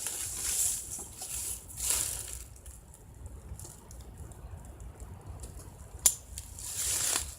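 Intermittent crunching and rustling handling noises, with a single sharp knock about six seconds in.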